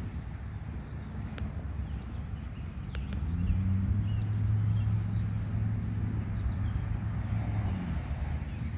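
A vehicle's engine hum swells about three seconds in, holds, then fades near the end, with faint bird chirps.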